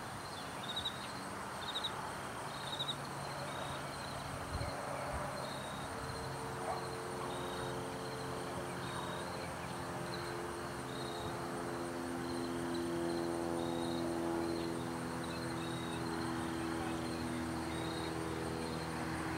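Insect chirping outdoors, a short high chirp repeating about once a second. Under it a steady low motor hum, like a distant vehicle engine, grows louder from about six seconds in.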